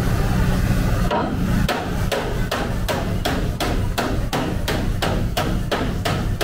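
Hammer blows on a car's sheet-metal body during panel-beating repair: a steady run of a dozen or more sharp strikes, about three a second, starting about a second in.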